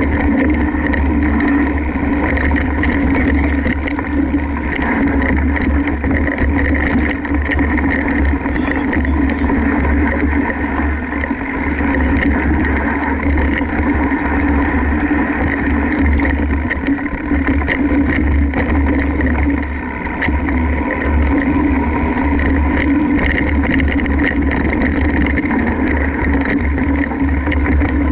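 Wind rumble and riding noise on a camera carried on a mountain bike over a rough, rocky singletrack, with many small knocks and rattles from the bumps in the trail.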